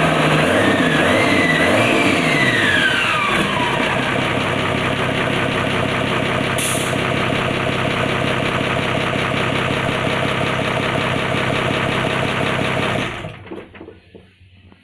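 Freshly restored Toyota 12H-T engine running on its first start, rising and falling in pitch with revving in the first few seconds, then running steadily. It shuts off about 13 seconds in.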